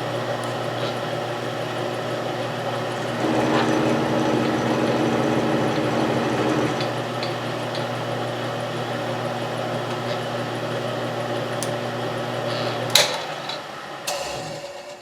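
Milling machine running with its end mill taking a spring pass along a groove in a brass plate: a steady motor hum with cutting noise that grows louder for a few seconds about three seconds in. Near the end a sharp click as the machine is switched off, the hum stops, and a second click follows as it spins down.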